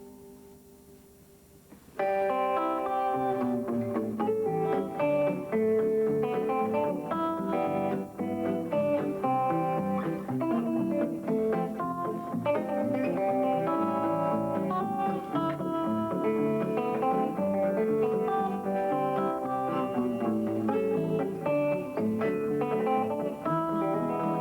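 A guitar chord rings and fades away, then about two seconds in a thumbpicked guitar tune starts up, with low bass notes under a picked melody.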